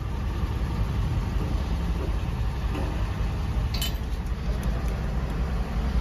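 Diesel engine idling with a steady low rumble, and a single metallic clink about four seconds in.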